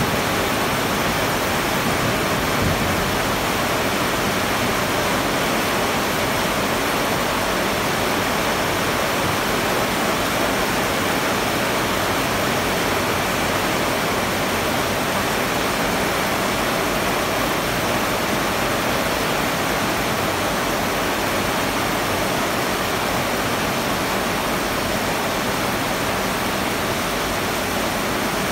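Heavy tropical downpour: rain falling steadily as a dense, even hiss.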